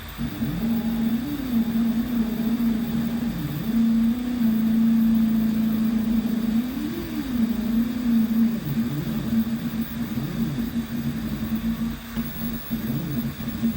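OpenBuilds Big Ox CNC machine's stepper motors whining as the gantry moves, the pitch holding steady on long moves and sliding up and down as the axes speed up, slow down and change direction. The sound drops away at the very end.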